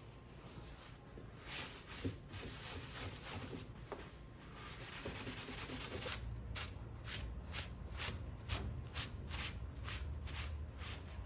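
Hand rubbing strokes on the tractor's plastic fuel tank as the area around the cracks is scrubbed clean to prep it for epoxy. About halfway through they settle into quick, even back-and-forth strokes, roughly three a second.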